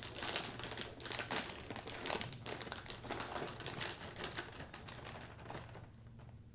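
Plastic liner bag inside a cereal box crinkling and crackling as it is pulled open, dying down after about five seconds.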